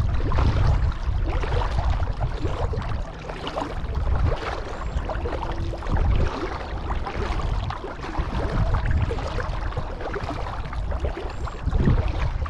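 Water splashing and sloshing against a kayak on the move, with a steady low wind rumble on the microphone.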